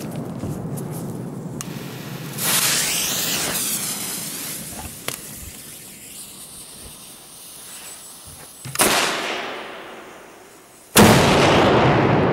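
Large Polenböller-type firecrackers going off one after another: blasts about two and a half and nine seconds in, and the loudest, sharpest bang near eleven seconds. Each trails off in a long rumbling echo.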